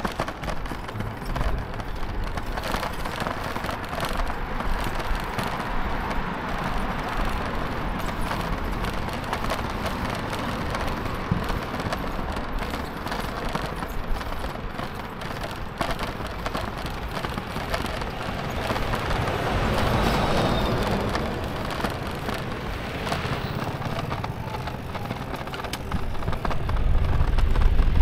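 Steady wind and road noise from a camera moving along the street at riding speed, with many small rattling clicks. Traffic noise swells and fades about twenty seconds in, and low wind buffeting grows loud near the end.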